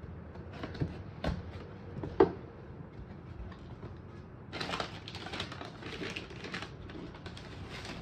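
Cardboard shoe box being handled and opened: a few knocks and taps of the lid and flaps, the loudest a little over two seconds in. From about halfway on, continuous crinkling and rustling of the white paper packed around the sneakers as the hands pull it back.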